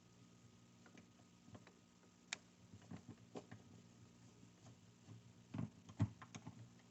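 Faint scattered clicks and ticks of a screwdriver turning out a screw from a refrigerator door's vertical flap, with a sharper click about two seconds in and two louder ones near the end, over a steady low hum.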